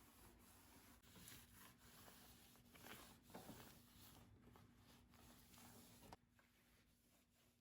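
Near silence: a few faint rustles and scrapes, over a faint steady hum that cuts off about six seconds in.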